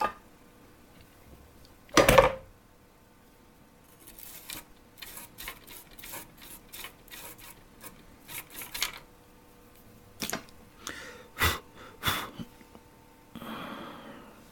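Small hand tools handled on a workbench while cleaning solder from a circuit board: a loud knock about two seconds in, then a string of light clicks and taps, a few sharper knocks, and a brief rustle near the end.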